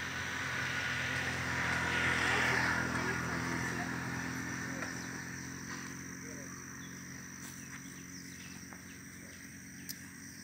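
A vehicle engine hums steadily. A rush of noise swells about two seconds in and then slowly fades.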